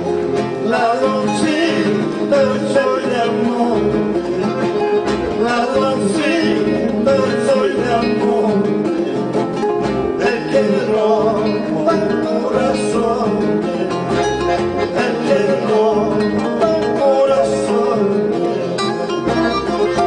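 Live accordion and acoustic guitars playing a tune together, the guitars picking and strumming under the accordion.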